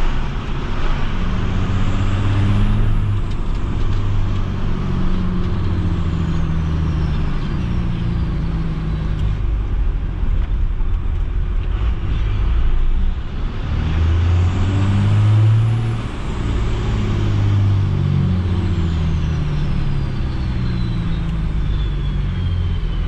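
12-valve 5.9 Cummins turbo diesel pulling the truck along, its engine note stepping up and down in pitch. A high turbo whine climbs to a peak twice, about 3 s and 15 s in, and each time falls away slowly over several seconds.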